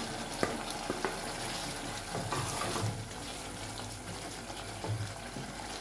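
Wooden spoon scraping sliced carrots off a plastic chopping board into a pot of thick tomato stew, then stirring the wet, chunky stew, with a few light knocks early on.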